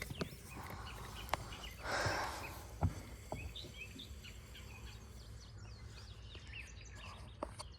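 Outdoor ambience: faint bird chirps over a low rumble of wind noise, with a few sharp clicks and a short hiss about two seconds in.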